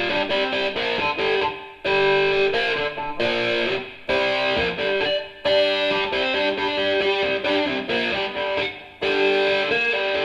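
Recorded music: held melodic notes with guitar, dropping away briefly three or four times. Right at the end a louder passage with heavy bass and drum hits cuts in.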